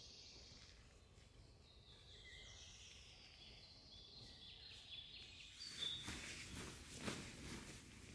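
Faint woodland ambience with high, thin bird calls gliding downward, then a run of soft rustling and crackling that grows louder in the second half.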